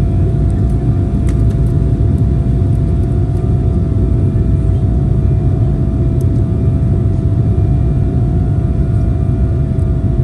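Jet airliner cabin noise from a window seat: a steady, loud low rumble of engines and airflow with a constant hum above it.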